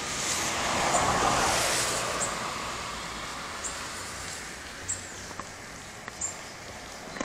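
A vehicle passes on the wet road over the bridge, its tyre and engine noise swelling to a peak over the first two seconds and fading by about three seconds in. Short high chirps recur every second or so throughout.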